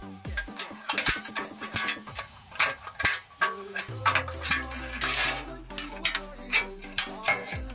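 Shunquan MQ52 rescue shears snipping through sheet metal: a run of sharp metallic clicks and crunches. Background music plays under it, with a deep bass note that slides down about four seconds in.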